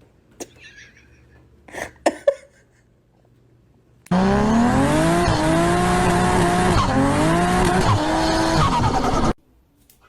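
A few faint knocks, then about four seconds in a loud car engine revving with tyre squeal, its pitch rising and falling, which starts abruptly, lasts about five seconds and cuts off suddenly.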